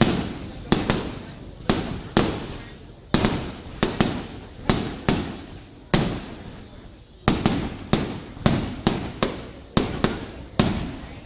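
Fireworks display: a rapid series of aerial shell bursts, sharp bangs each trailing off, about two a second, with a lull of over a second just past the middle before they come faster again.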